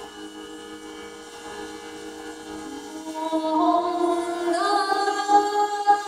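Early music over a steady organistrum drone of several held notes; about halfway through a higher melody enters, moving in steps, and the music grows louder.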